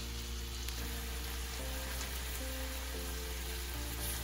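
Background music with held chords over the steady hiss of green beans sizzling in a frying pan.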